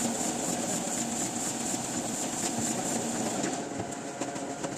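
Printing-press machinery running with a steady mechanical hum and hiss; near the end the hiss eases and a few light clicks come in.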